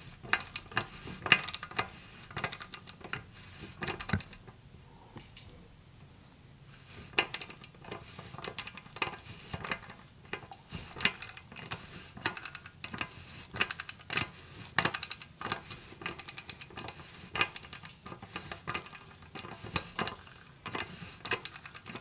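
Irregular light metallic clicks and clinks from a socket wrench on a Honda VFR's swingarm axle being rocked back and forth, with a quieter stretch about five to seven seconds in. The rocking checks for play in the axle, which the owner suspects is bent.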